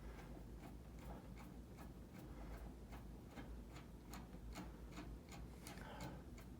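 Hand screwdriver backing out a long, fine-thread screw from a space heater's housing: faint, quick clicking, about four clicks a second.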